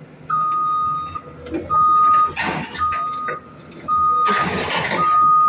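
A backhoe's reversing alarm beeping steadily, a single high tone about once a second, over the machine running, with louder bursts of rushing noise in between.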